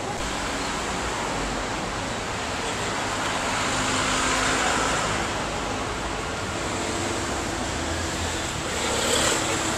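Steady city street traffic noise, swelling as a vehicle passes about four seconds in and again briefly near the end.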